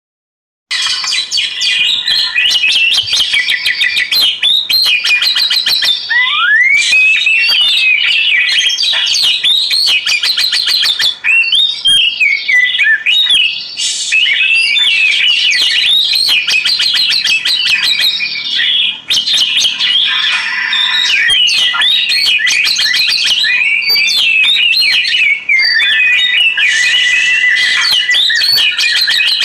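Oriental magpie-robin (kacer) singing continuously, a loud, rapid, varied song of whistles, rising and falling slurs, trills and sharp clicking notes. It begins just under a second in.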